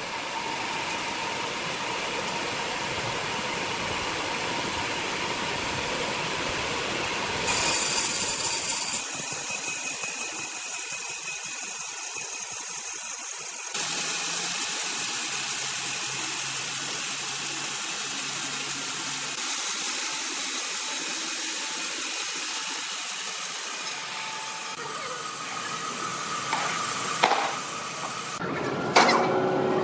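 Sawmill machinery running: a steady mechanical noise of saws and motors cutting timber, its character shifting abruptly every few seconds.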